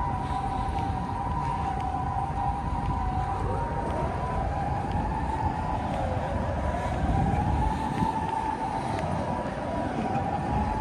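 Emergency vehicle siren over street traffic: a steady two-tone sound, then, from about a third of the way in, a wail that rises and falls roughly every three seconds.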